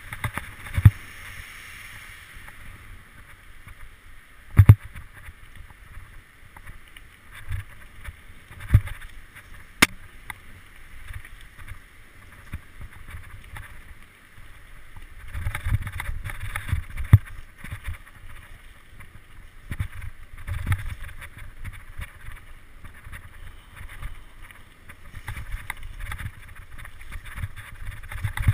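Mountain bike riding fast down a rocky gravel forest trail: tyres rumbling over loose stones, with sharp knocks from the bike hitting bumps and wind rushing on the microphone. The ride gets rougher and louder about halfway through.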